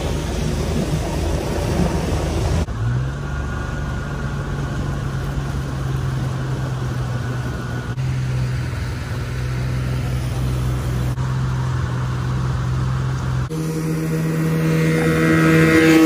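Small tiller outboard motor on an aluminium jon boat running steadily under way, with water rushing past the hull. The engine note jumps abruptly a few times and in the last couple of seconds runs higher and louder.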